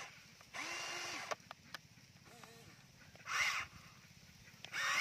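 Harsh bird calls: one at the start, a longer held call about half a second in, and two short calls near the end, over a faint steady low hum.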